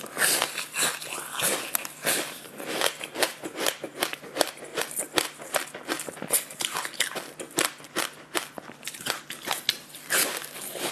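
Crunching and chewing of a crisp cracker thickly coated with black sesame seeds: it is bitten into and chewed, giving a dense, irregular run of sharp crunches throughout.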